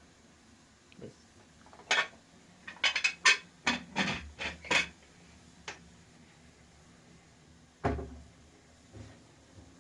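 Kitchen utensils and cookware being handled: a quick run of clinks and knocks, then a single dull thump near the end.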